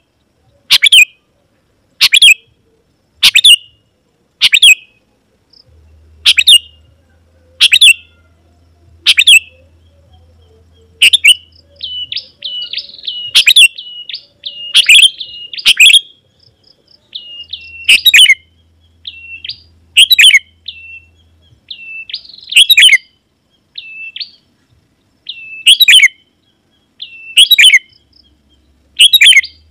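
Sooty-headed bulbul (kutilang) calling vigorously: loud, sharp calls repeated about once a second, with softer, quicker chattering notes between them through the middle stretch. The excited calling of a rival bird, used to lure wild bulbuls in.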